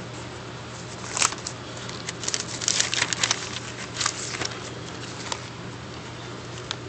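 Newspaper being handled and turned by hand: the paper rustles and crackles in short bursts, thickest around the middle, with a few single crackles either side. A steady low hum runs underneath.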